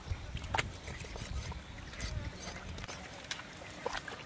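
Raw, wet beef tripe being handled and pressed onto a wooden chopping block: soft low thuds and wet handling noise, with a couple of sharp clicks.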